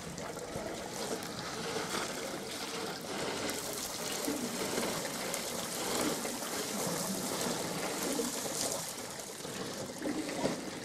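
Water trickling and splashing as an African elephant drinks close by, water running from its trunk back into the pool.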